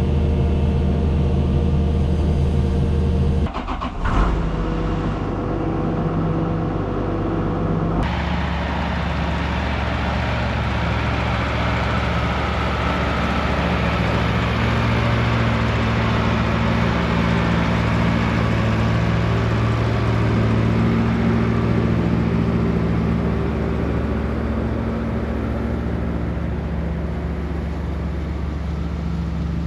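An engine running steadily, with abrupt changes about three and a half and eight seconds in, and a brief knock in between.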